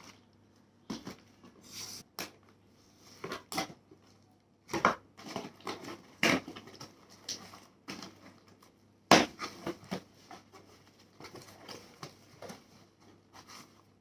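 Plastic packaging of a parcel being handled and opened: irregular crinkling, rustling and tapping, with a sharp crack about nine seconds in.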